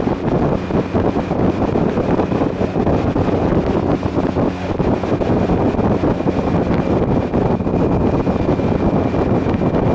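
Wind buffeting the microphone on a motorcycle at steady cruising speed, over a constant drone of engine and road noise.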